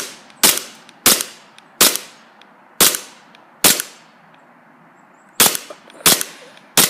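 Glock 23 green-gas airsoft pistol firing eight shots, each a sharp crack with a short fading tail. The shots come about half a second to a second apart, with a longer pause of nearly two seconds near the middle.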